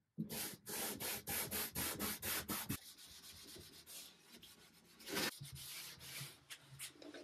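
Green scrubbing pad rubbing a finish restorer into a wooden wardrobe panel. Brisk back-and-forth strokes come about four a second for the first few seconds, then the rubbing turns softer, with one louder stroke about five seconds in.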